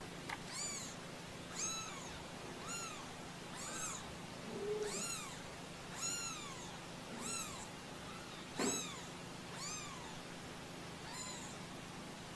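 Kittens mewing: short, high-pitched mews that rise and fall, roughly one a second. A soft knock comes about two-thirds of the way through.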